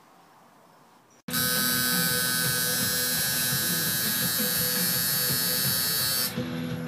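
A steady electric buzz like a small motor, such as a shaver or clipper, cuts in abruptly about a second in and runs loud, then thins and drops in level near the end.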